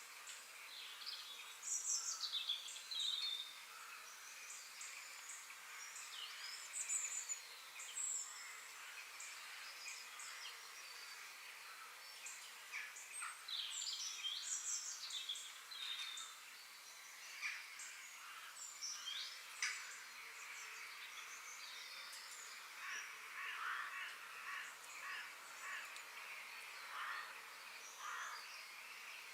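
Forest ambience: several birds calling and chirping over a steady background hiss.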